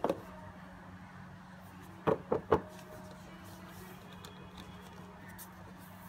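Rigid cardboard box handled in gloved hands: one knock at the start, then three quick knocks about two seconds in, over a steady low hum.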